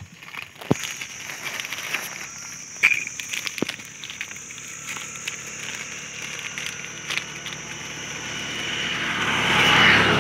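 Scattered crackles and snaps of dry leaf litter as gray langurs move about, over a steady high-pitched hiss. Near the end a louder rushing sound, most like a passing vehicle, swells to its peak and begins to fade.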